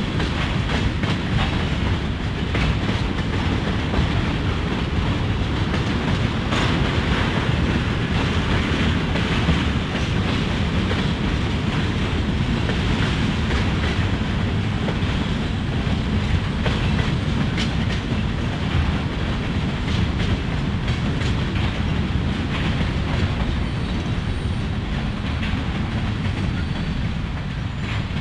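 Freight cars (tank cars and covered hoppers) rolling past over a grade crossing: a steady low rumble with wheels clicking over the rail joints and crossing. The rumble eases off near the end as the last car clears.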